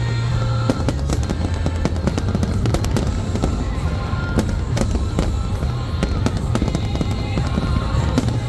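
Fireworks display going off in rapid succession: many sharp bangs and crackles over a continuous low rumble.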